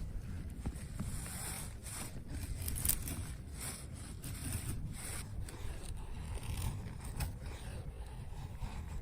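Irregular scraping and rustling handling sounds, many short strokes, over a steady low rumble.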